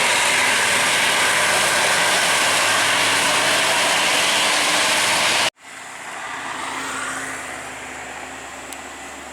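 Heavy vehicle climbing past close by, a loud steady engine-and-road rush that cuts off suddenly about five and a half seconds in. A quieter, more distant vehicle engine follows, swelling briefly and then fading a little.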